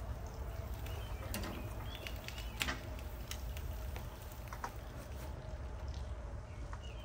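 Metal grill tongs clicking against the grill and the serving tray several times as burgers are handled, the loudest click a little under three seconds in, over a steady low rumble with faint bird chirps.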